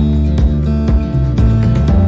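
Background music: a strummed acoustic guitar track with a steady beat and a strong bass.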